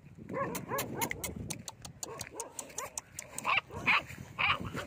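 Puppy yelping and whining in short, frightened calls, the loudest three near the end. A run of sharp clicks sounds in the first half.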